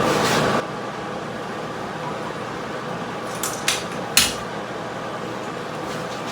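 Miller-Matic 140 MIG (wire-feed) welder arc crackling through the end of a tack weld, then cutting off abruptly about half a second in. A quieter steady hum follows, with three short metallic clinks a little past the middle.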